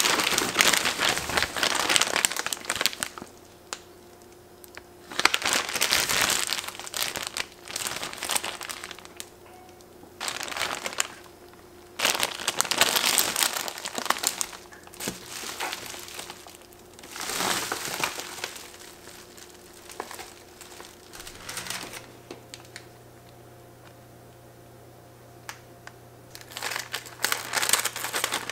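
Plastic packaging and a foil-bubble insulated liner crinkling in repeated bursts of a second or two, with quieter pauses between, as items are unpacked from a meal-kit bag. Near the end, a run of short sharp clicks and crackles as scissors cut a plastic rice bag.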